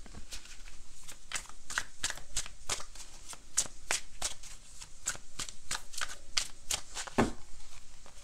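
A deck of tarot cards being shuffled by hand: a fast run of riffling clicks with one duller thud about seven seconds in.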